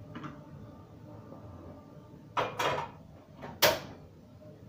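Hand mixing flour dough in a plastic bowl: a few short scraping, rubbing sounds, the loudest near the end.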